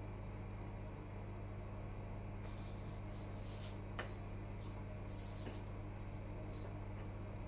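Steady low electrical hum. About two seconds in, a run of soft, hissy rubbing strokes starts, with a couple of faint clicks, and dies away about six seconds in.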